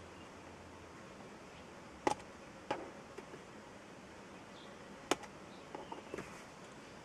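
Faint steady hiss with a few sharp clicks, the loudest about two seconds in and about five seconds in, and a little cluster of softer clicks near the end.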